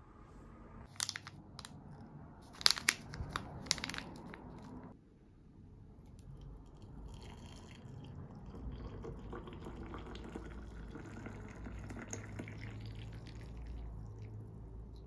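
A few sharp clicks and knocks in the first four seconds, then hot water poured in a steady stream into a frosted glass mug over a tea bag.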